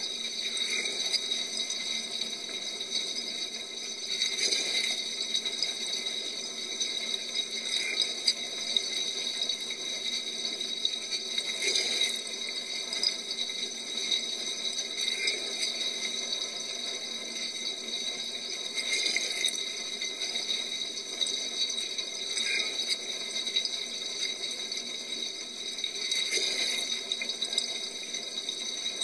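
Dishwasher mid-wash, heard from inside the tub: water spraying and splashing continuously, with a steady high whine underneath. The spray swells about every three to four seconds as the rotating spray arm sweeps past.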